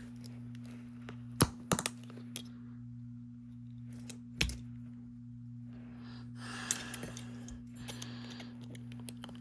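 Sharp metal clicks and snaps as a knife blade pries at the casing of an iPhone XR Taptic engine, a cluster of them about a second and a half in and another near the middle, then a stretch of scraping. A steady low electrical hum runs underneath.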